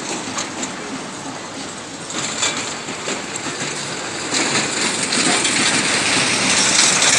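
Road traffic noise, a rushing hiss that builds from about two seconds in and grows louder over the second half.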